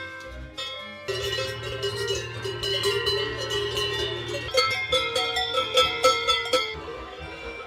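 Cowbells ringing on a herd of Brown Swiss cows walking, setting in about a second in and clanging most densely toward the end, over background music.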